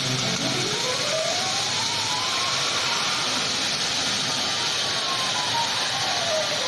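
CO2 laser cutting machine running: its drive motors whine in tones that rise and fall as the cutting head speeds up and slows down, over a steady hiss.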